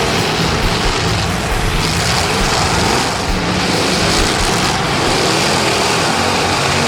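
Demolition derby cars' engines running hard, a loud steady din.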